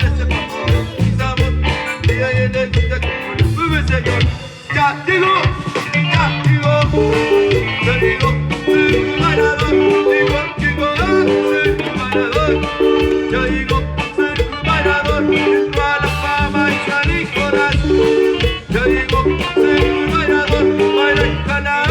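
Loud Latin dance music with a steady bouncing bass beat and a melody line over it, played through a large PA sound system.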